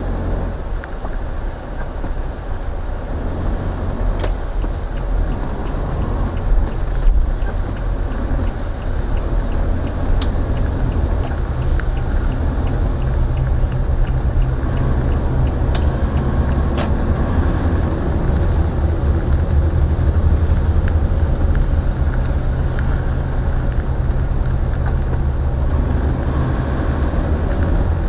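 A car's engine and tyre noise heard from inside the cabin: a steady low rumble that grows louder as the car moves off and picks up speed on the wet road, with a few faint sharp ticks.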